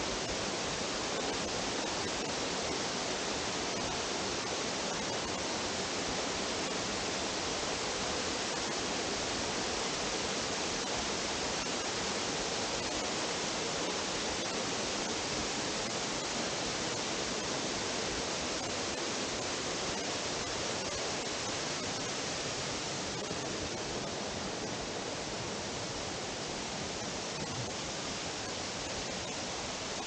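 Steady rushing of a waterfall cascading into a pool, a little fainter over the last several seconds.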